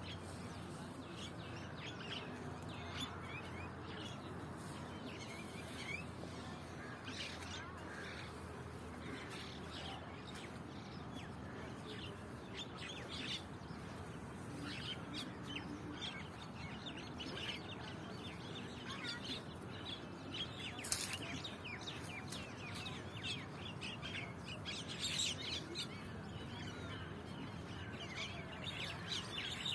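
Many birds chirping, their short calls overlapping, over a steady low background rumble.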